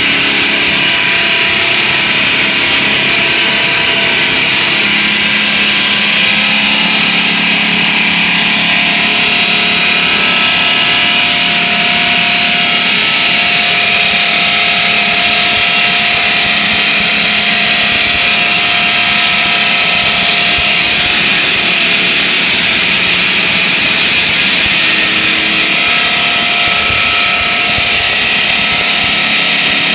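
Automatic gantry concrete-cutting saw running its circular blade through a precast concrete slab: a loud, steady, high-pitched grinding noise with faint humming tones from the drive underneath.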